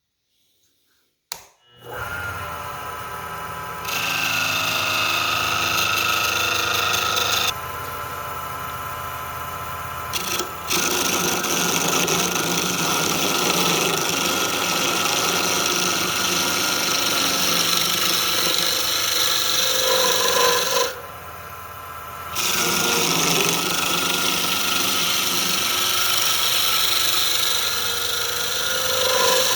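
A power tool starts up and runs steadily. Its loudness and tone shift as the work is pressed against it and eased off, with a short lull about two-thirds of the way through.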